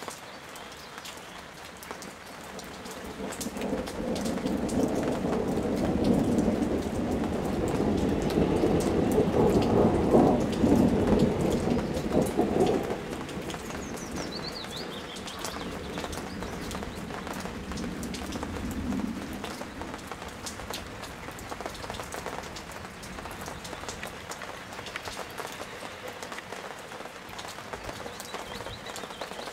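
Steady rain hissing and pattering throughout, with a long roll of thunder. The thunder builds a few seconds in, is loudest about ten seconds in, and fades out by about thirteen seconds. A fainter rumble follows near nineteen seconds.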